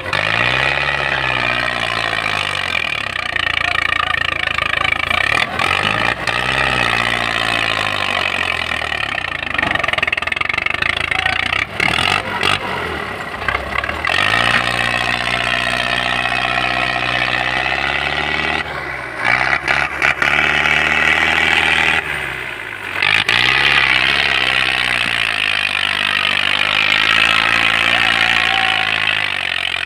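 A farm tractor's diesel engine revving up and easing off again and again under heavy load as it strains to pull a trolley piled high with sugarcane, with a few brief knocks in between.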